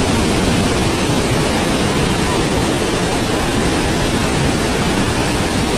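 Muddy floodwater rushing in a fast torrent, a loud steady wash of water noise with no pauses.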